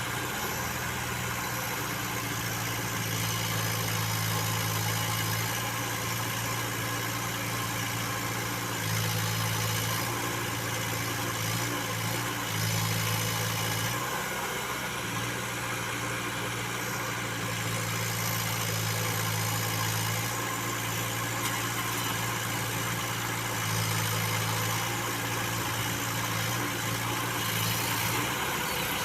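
Diesel engine of a Case 851 EX backhoe loader running steadily, its low note swelling and easing every few seconds as the load on it changes.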